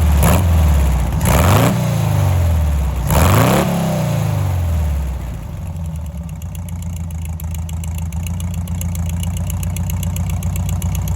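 Meyers Manx dune buggy's air-cooled VW flat-four engine being blipped: three quick revs in the first few seconds, each falling back, then settling to a steady idle for the rest.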